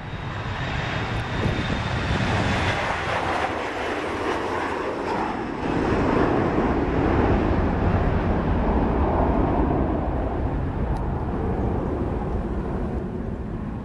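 Boeing 737 twin jet engines at take-off thrust: a loud, even roar that builds, grows suddenly louder about halfway through, then slowly fades as the jet climbs away.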